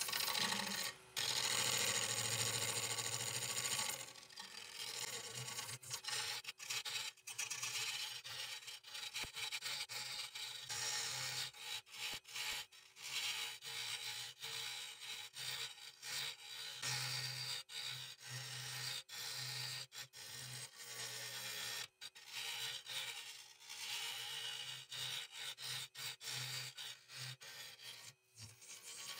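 Gouge cutting a spinning wood-and-resin bowl blank on a wood lathe: a rough, hissing scrape that comes and goes in short passes, loudest in the first few seconds, over the low hum of the lathe.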